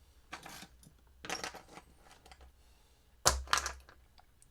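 Parts and tools being handled on a workbench: three short clattery bursts, the loudest with a thump a little over three seconds in.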